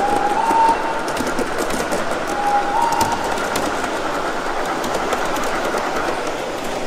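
Gauge 1 model trains rolling along the layout track, a steady clattering rumble of metal wheels with a patter of rail-joint clicks. Twice, at the start and again between two and three seconds in, a short two-note locomotive whistle sounds, stepping up in pitch.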